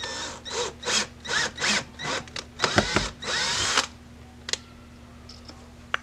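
Cordless drill run in a series of short bursts, about eight in the first four seconds with the last one held longer, its motor whine rising and falling with each trigger pull, starting pilot holes in the door trim. A couple of light clicks follow.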